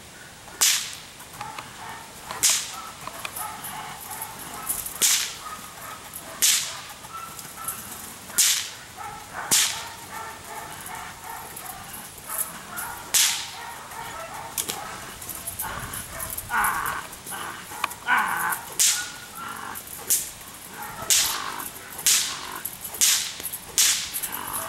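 Sharp whip cracks, loud and sudden, coming one every second or two, used to excite a puppy in K-9 bite training.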